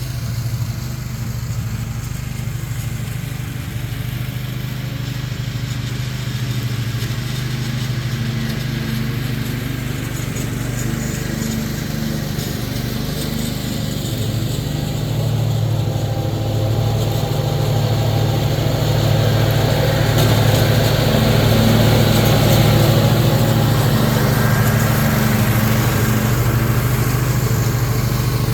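Zero-turn mower's 20 hp Briggs & Stratton Intek V-twin engine running steadily while mowing, a steady low hum that grows louder about halfway through.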